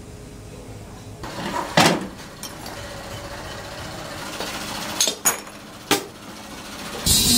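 Clanks and clinks of aluminium pans and metal being handled: one loud knock about two seconds in and three more close together around five to six seconds. A loud steady hiss starts just before the end.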